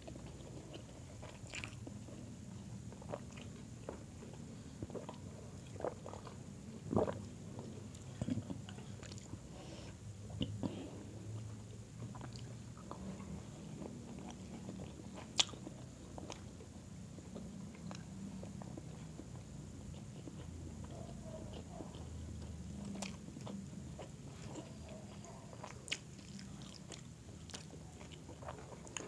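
Close-miked eating: chewing and mouth smacks with scattered small clicks as grilled chicken and rice are picked apart by hand and eaten, one sharper click about fifteen seconds in.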